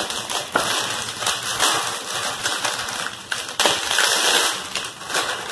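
Clear plastic wrapping crinkling and rustling as it is pulled off a wooden cutting board, with a few sharper crackles.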